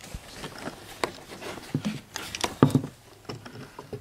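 Irregular light clicks and knocks of hands handling things in an engine bay, with the loudest knock about two and a half seconds in.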